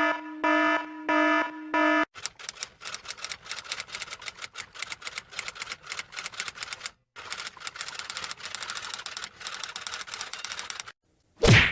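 An electronic alarm beeps in about four short pulses. Then typewriter keys clatter rapidly for about nine seconds, with a brief pause midway. A single short, loud punch sound effect lands near the end.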